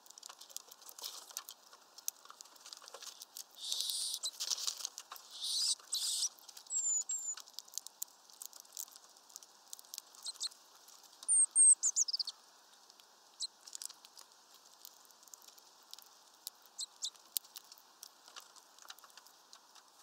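Small birds at a hanging mesh peanut feeder: fast, irregular clicking and tapping of beaks pecking at the peanuts and feet scrabbling on the mesh and perch, with a few short rustling bursts. Brief high chirps come in twice, the louder a quick falling run of calls about eleven seconds in.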